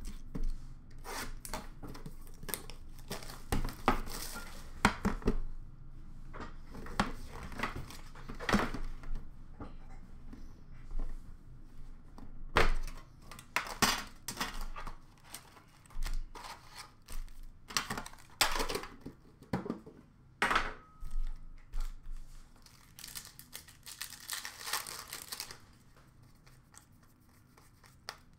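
Upper Deck hockey card packs being torn open by hand: the wrappers tear and crinkle in irregular short bursts, with cards shuffled and set down in between. It dies down to quiet handling near the end.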